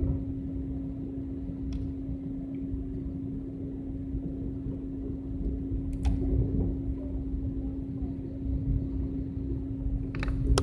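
Steady cabin noise of an airliner under way: a low rumble from the engines and airflow with a steady hum, and a couple of faint clicks about two and six seconds in.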